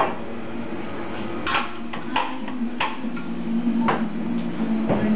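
Knocks and metal clinks of espresso-bar gear being handled: portafilter, steel milk pitcher and cups at a commercial espresso machine. There are about five sharp knocks, roughly a second apart, over a steady low hum.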